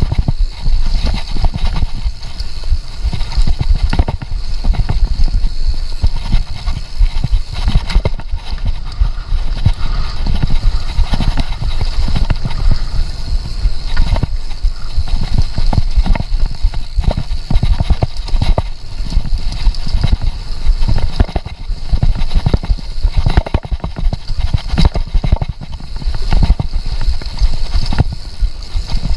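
Downhill mountain bike clattering over rough ground at speed: a dense, irregular run of knocks and thumps that never lets up.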